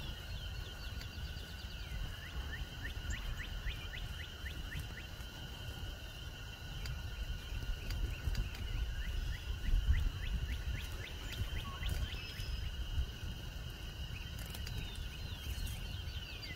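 A small bird singing runs of short, quick downward chirps, several a second, in bouts, over low wind rumble on the microphone.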